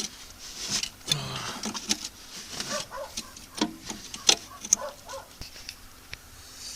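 Irregular light clinks and knocks of metal tools and parts being handled, with a few short mutters.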